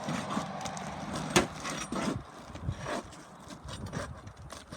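Knocks and scrapes of tool work prying sealed asphalt shingles loose on a roof, with the sharpest knock about a second and a half in. The thick, sticky shingles are being broken free of their seal and nails.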